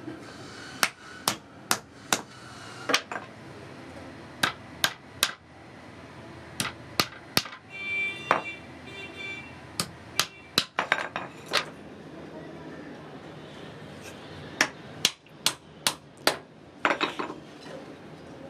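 Hammer tapping nails into wood: sharp strikes in short runs of two to four, with pauses between runs. A short high-pitched tone sounds about eight seconds in.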